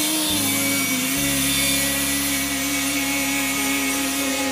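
Background music: an instrumental stretch of a pop-rock love song between sung lines. Sustained chords change about a second in, over a rough, hissy layer.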